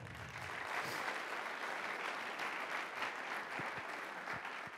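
Audience applauding, a steady wash of many hands clapping.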